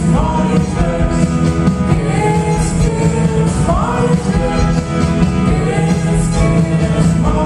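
Live indie rock band playing a song, with sung vocals over guitars and drums, loud and steady.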